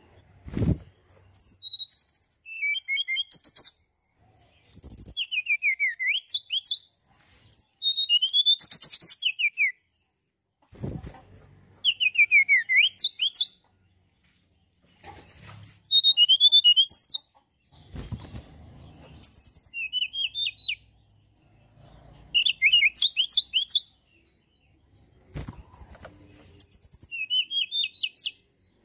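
Tledekan gunung singing: about nine short, loud phrases of rapid, high whistled notes with many quick falling sweeps, separated by short pauses. A few low thumps come just before some phrases.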